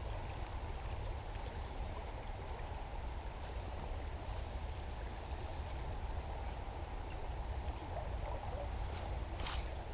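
Steady rush of shallow stream water running over a gravel riffle, with a few faint clicks.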